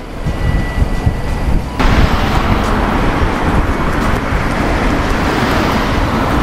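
Street traffic: a car passing at first, then, after an abrupt change about two seconds in, steady road noise with a low rumble.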